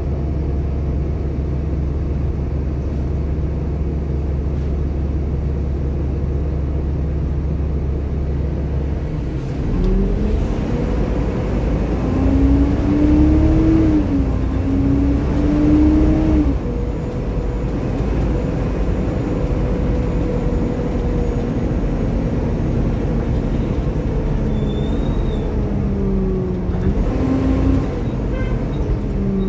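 Double-decker bus's diesel engine running with a steady low drone while standing, then pulling away about ten seconds in: the engine note rises, drops at a gear change, rises again and drops, then settles, with another short rise and fall near the end. Heard from inside the bus on the upper deck.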